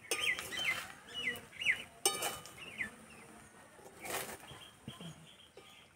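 A metal spatula scrapes and knocks against a steel wok as cooked pulao rice is stirred, with a few sharp strokes spaced about two seconds apart. Small birds chirp throughout in quick, short, falling calls.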